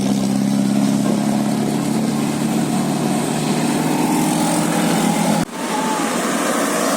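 Bus engine idling with a steady low drone. About five and a half seconds in, the sound cuts off abruptly and gives way to a different, thinner background noise.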